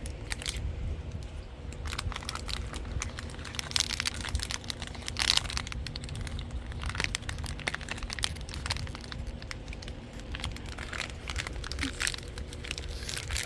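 A dog chewing and mouthing a home-made sock toy, making irregular crackling and crinkling that sounds like a crackling fire.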